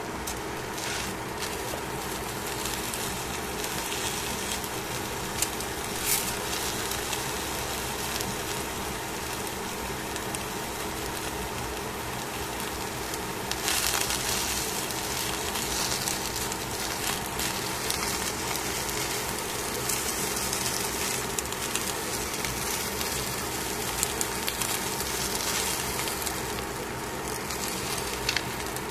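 Mackerel fillets sizzling and crackling on aluminium foil in a hot pan, with a few clicks of tongs and a wooden spatula as they are turned. The sizzle gets louder about halfway through, when a fillet is flipped onto its flesh side.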